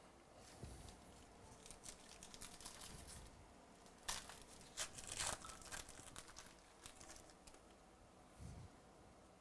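A Diamond Kings baseball card pack's wrapper being torn open and crinkled by hand, in quiet crackling rustles. The loudest tearing comes about four to five and a half seconds in.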